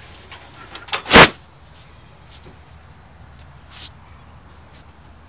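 Handling noises: a short, loud rustle or knock about a second in, a smaller one near four seconds, and a few faint clicks.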